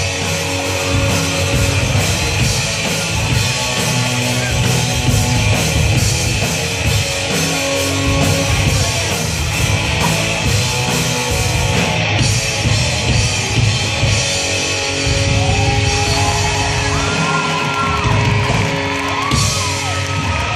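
A live rock band playing: electric guitars, bass guitar and a drum kit, at a steady loud level.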